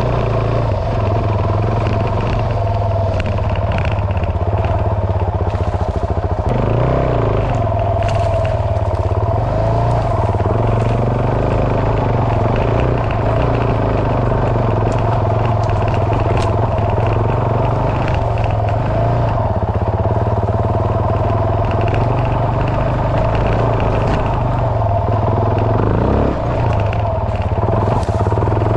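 Dual-sport motorcycle engine running while being ridden, its pitch rising and falling a little with the throttle.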